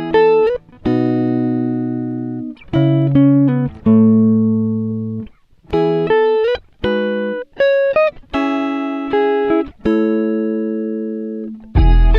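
Harmonica playing a slow hymn melody as a series of held chords with short breaks between them and a few small pitch bends. Just before the end a lower, fuller accompaniment joins in.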